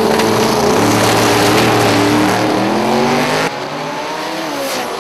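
Drag racing cars, a turbo Subaru WRX and a V8 Ford Falcon GT-P, running at full throttle: engines revving hard over loud tyre noise. The sound drops suddenly about three and a half seconds in, then the cars pull away from the start line with rising engine notes.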